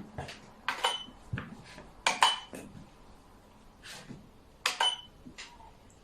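Xiangqi pieces clacking against the board and each other: a series of sharp clicks in small clusters, several with a brief bright ring.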